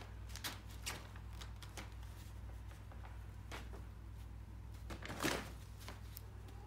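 Kittens' claws scratching and scrabbling on the fabric of a photo softbox, in scattered short rustles with the loudest about five seconds in, over a low steady hum.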